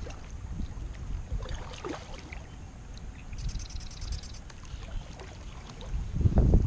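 Wind buffeting the microphone on a kayak, a steady low rumble that grows stronger near the end, with a brief run of rapid clicking about halfway through.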